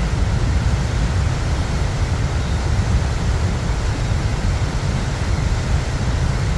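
Horseshoe Falls' water plunging into the gorge: a steady, deep rushing rumble with a hiss above it and no break.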